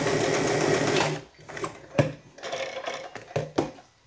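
Domestic zigzag sewing machine running steadily while stitching a very small zigzag on thin fabric, stopping about a second in. Then come quieter handling sounds as the fabric is pulled out, with a few sharp clicks.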